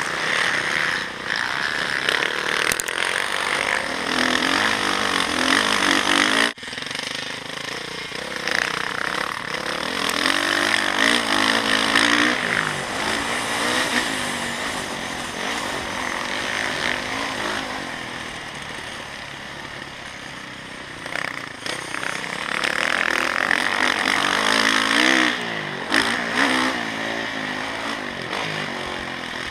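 Motocross dirt bike engine revving up and falling back again and again as it is ridden round a dirt track, heard close up from the rider's own bike with a heavy rushing noise over it. The sound breaks off abruptly about six seconds in and picks straight up again.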